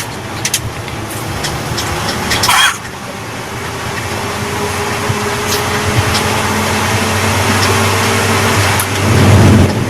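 Suzuki T120SS pickup engine being revved with a fake turbo whistler fitted in the exhaust. A short rev with a rising whistle about two and a half seconds in cuts off sharply, then the revs build slowly to a louder blip near the end that also cuts off.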